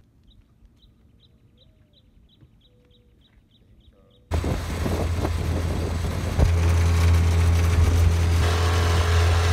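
Faint, evenly spaced high chirps of a cricket, about three a second. About four seconds in, the sound switches suddenly to a small boat's motor running loudly and steadily with a low hum, wind and water rush over it.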